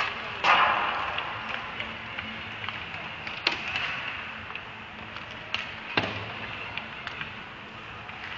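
Ice hockey play: a scrape of skate blades on the ice about half a second in, then sharp cracks of sticks and puck, three of them in the second half.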